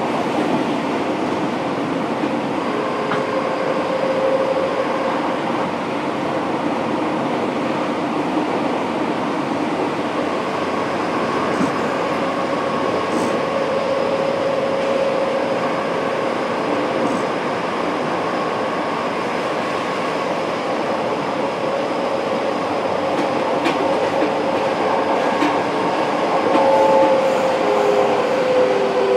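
Fukuoka City Subway 1000N-series train running, heard from inside the car: a steady rumble of wheels and running gear with a faint whine. Near the end the whine falls in pitch.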